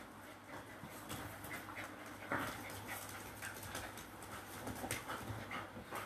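Two dogs panting and scuffling quietly as they play tug-of-war over a cloth, with irregular short puffs of breath and small knocks.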